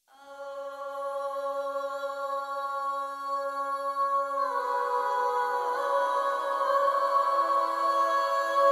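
Soundtrack music: sustained held notes fading in from silence, the chord shifting about halfway through.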